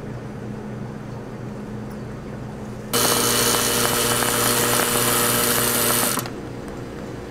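Electric cream-dispensing machine running for about three seconds as cream is piped through its metal nozzle into a bubble-waffle cone, a loud whirring hiss that starts and cuts off abruptly. A steady low machine hum continues underneath.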